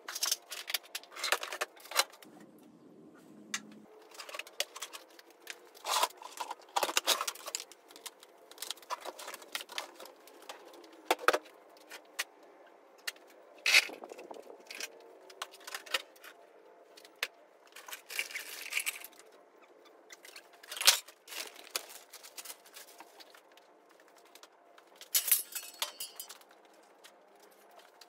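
Irregular clunks, clatters and rattles of tools and objects being handled, moved and set down around a garage workshop, with sharp knocks scattered through and a louder bang about 21 seconds in.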